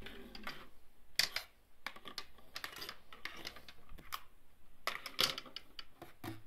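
Handling noise: irregular light clicks and short rustles, with no steady rhythm.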